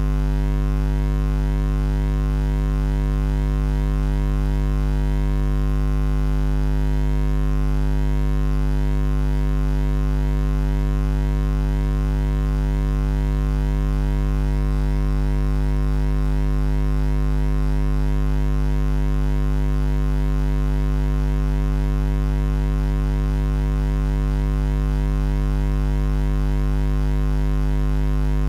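A steady, loud low hum with a stack of overtones. It holds one unchanging pitch throughout, with no breaks.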